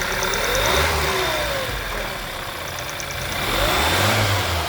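Volkswagen Jetta 2.0 TSI engine running and being revved up and let back down twice, with a fast high ticking at times. The mechanic traces this engine noise to a faulty sensor, not to a failed engine.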